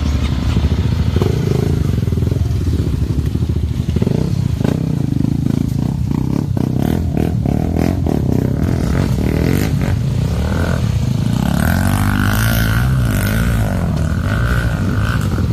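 Enduro motorcycle engine running and pulling under load, with a run of clattering knocks from about four to ten seconds in. Near the end the engine pitch rises and falls as the throttle is worked.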